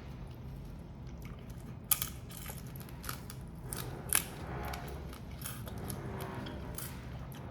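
Grilled prawn and crab shells being cracked and broken apart during eating: a scattering of crisp cracks and crunches, the two loudest about two seconds and four seconds in.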